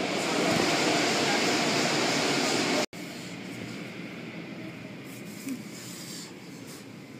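Automatic car wash: a loud rush of water spray and cloth brushes working close by, which cuts off suddenly about three seconds in. A quieter, steady wash of machinery and running water follows.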